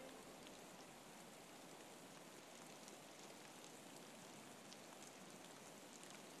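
Faint rain sound: a steady hiss with scattered soft drop ticks, left on its own as the music cuts off at the very start.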